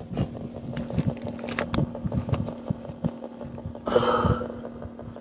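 Scattered clicks and pops over a steady electronic hum from ghost-hunting equipment, then a short sharp burst of noise about four seconds in that sounded like a gunshot.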